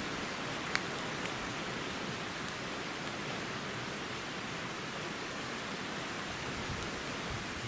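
Outdoor ambience by a smoking wood campfire: a steady rushing hiss with a few sharp clicks, the loudest about a second in.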